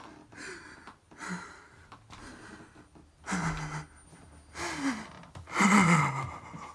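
A man gasping and breathing hard in acted anguish, with short whimpering groans that fall in pitch. The loudest groan comes near the end.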